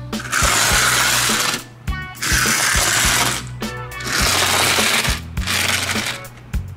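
A small die-cast toy car pushed by hand through loose gravel, the stones crunching and rattling in three long scrapes of about a second and a half each. Background music with a steady beat plays underneath.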